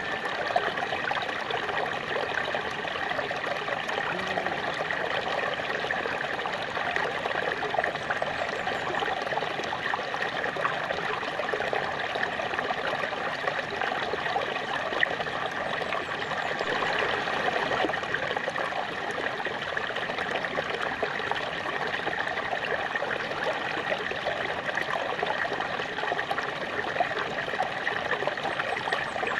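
Small waterfall splashing and trickling steadily into a stream.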